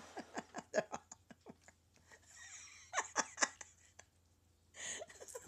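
A person laughing quietly in quick, short breathy bursts, with a louder cluster of laughs about three seconds in and a breathy exhale near the end.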